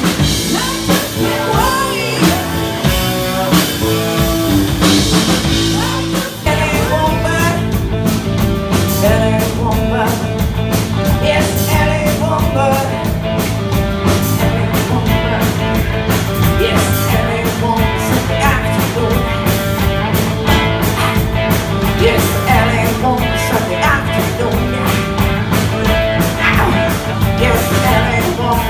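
Live rock band playing loud: electric guitar, bass guitar and drum kit, with a woman singing. There is a brief drop about six seconds in, then the full band carries on with a busy drum beat.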